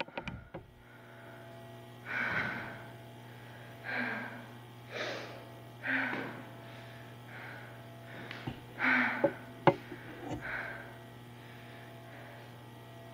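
A person breathing hard: a series of short, noisy breaths about every second or so, over a steady electrical hum, with a few light knocks near the end.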